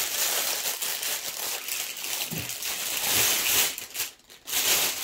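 Crinkling and rustling of packaging as a microphone boom arm is worked loose from its foam packing, pausing briefly about four seconds in.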